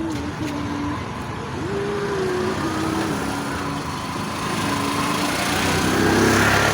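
Road traffic with a small engine running, its pitch stepping up and down as it speeds up and slows, and growing louder after about five seconds.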